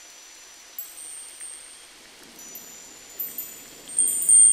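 Wind chimes tinkling in a relaxation soundscape: several high, ringing strikes that overlap and fade, the loudest near the end, over a soft, even hiss.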